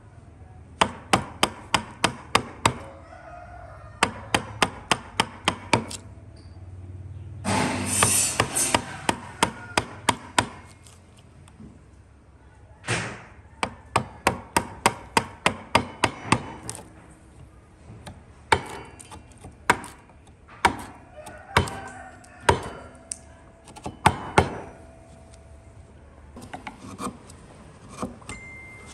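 A hand tool striking wood in quick runs of sharp blows, about three or four a second, with short pauses between the runs and a brief rasping rush about eight seconds in.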